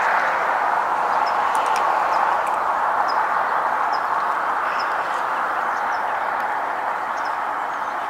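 Steady rushing background noise that fades slightly toward the end, with short high chirps from a small bird every second or so.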